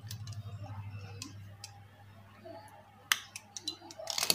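Sharp clicks and taps of wire, plastic tubing and tools being handled and set down on a tiled floor, a loud click about three seconds in and a quick cluster near the end, over a steady low hum.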